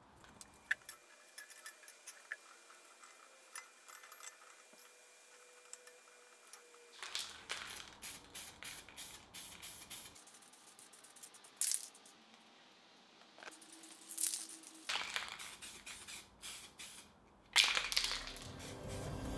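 Aerosol spray-paint can rattling and hissing in short bursts of spray, with scattered light metallic clicks before the spraying starts.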